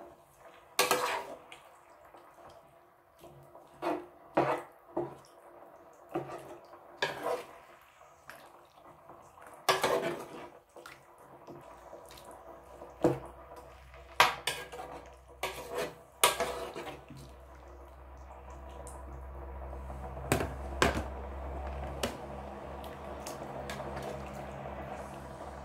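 A metal serving spoon stirring soup in an electric skillet, knocking and scraping against the pan in irregular clinks as it moves through the broth. A steady low hiss builds up in the second half.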